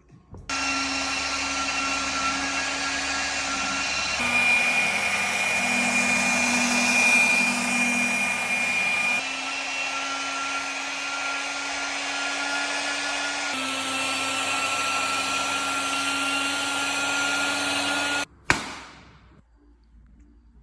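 A handheld electric power tool running steadily, its motor tone shifting abruptly a few times between stretches. It cuts off near the end, followed by one sharp knock that rings out briefly.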